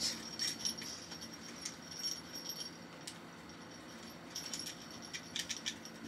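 Small plastic crocodile-teeth keychain toy being handled, with faint scattered clicks and rattles and the light jingle of the little bell on its keychain.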